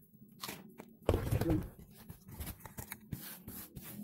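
Handling sounds from crumbled cassava on a wooden board and bowl: scraping and light knocks, with a louder scuffing clatter a little over a second in.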